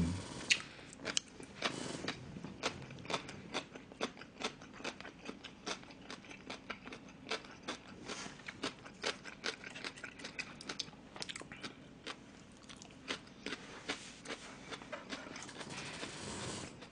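A person chewing a crunchy bite of yellow pickled radish (danmuji), close to the microphone, with crisp crunches about twice a second.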